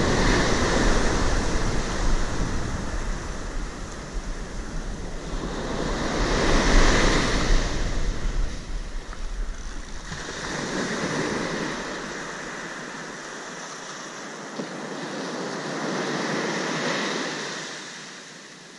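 Surf breaking on a beach, waves swelling and washing in every few seconds. Wind rumbles on the microphone until a little past halfway.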